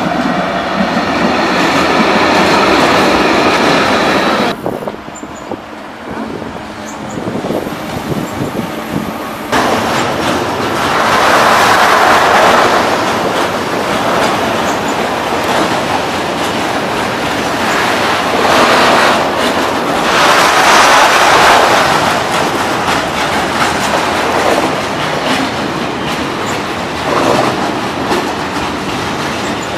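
Fret SNCF BB 75000 diesel locomotive passing with its engine running, then freight trains of tank wagons rolling past with wheels clattering over the rail joints, the noise swelling each time a group of bogies goes by.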